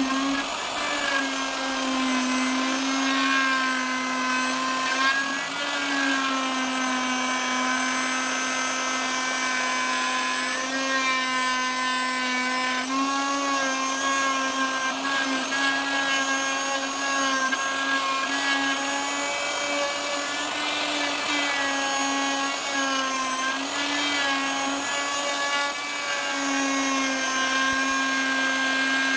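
Electric wood router running at full speed and cutting into teak, a steady high whine whose pitch sags slightly and recovers as the bit takes load.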